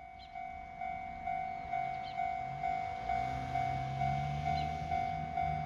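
Japanese railway level-crossing warning bell ringing: an electronic bell tone repeating about twice a second, each strike fading. A low drone joins about three seconds in.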